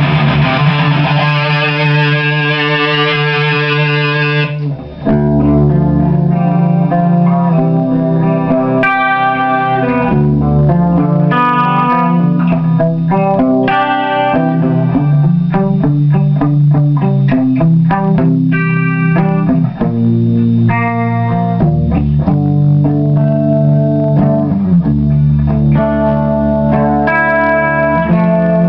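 Electric guitar played through a Line 6 Spider Valve HD100 valve amp on a high-gain metal preset. A distorted chord rings for the first few seconds, then low riffs alternate with higher note runs.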